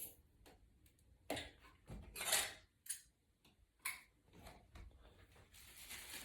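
Scattered light clicks, taps and short scrapes of small iPad screen parts being handled, the loudest a brief rustling scrape about two seconds in.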